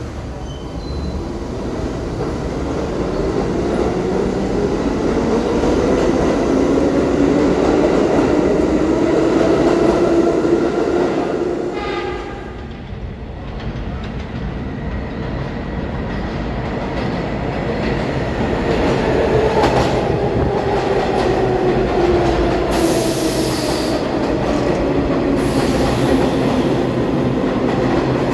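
A stainless-steel R62A subway train pulls out, its traction motors whining up and then down in pitch over its cars' rumble and rail clatter. Then vintage R33/R36 subway cars come in along the platform, wheels clattering and motors whining again, with brief high squeals and a hiss on the way.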